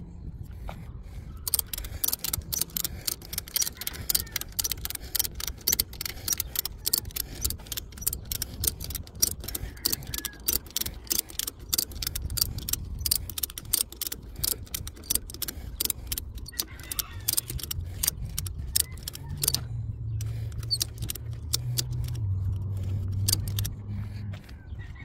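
Ratchet strap buckle being cranked, a long run of rapid, sharp metallic clicks as the strap is tightened to winch a heavy electric tricycle up onto a bumper-mounted bike rack. The clicks come thick at first and grow sparser later on, with a low steady hum underneath near the end.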